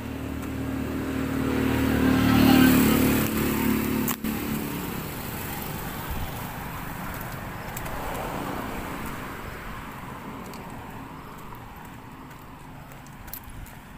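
A motor vehicle passes close by on the road, its engine and tyre noise swelling to a peak about two and a half seconds in and then fading. A sharp click comes about four seconds in, and a second, quieter vehicle passes around eight seconds in.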